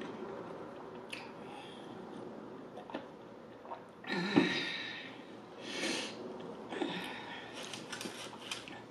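A woman breathing out and sniffing heavily after drinking from a plastic cup. The loudest breath comes about four seconds in, two shorter ones follow, and light clicks come from handling the cup.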